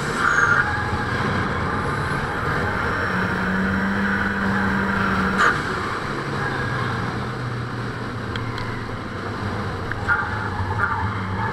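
Car engine running as the car drives round the track, heard from a camera mounted on the outside of the car's body. The engine note holds fairly steady, then drops to a lower pitch about halfway through.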